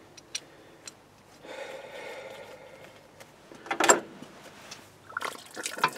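Metal parts of an Austin Maestro's thermostat housing being worked loose: a few light clicks, a grating scrape, and a sharp clunk just before the middle. Near the end, more clatter as coolant begins to pour out of the undrained engine.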